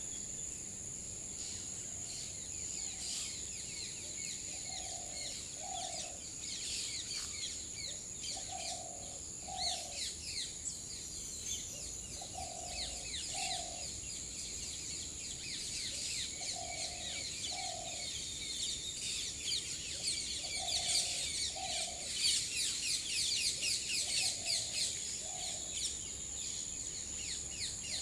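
Outdoor birdsong ambience: many small birds chirping, with a low two-note call repeating about every four seconds and a steady high insect drone underneath. The chirping grows busier in the last third.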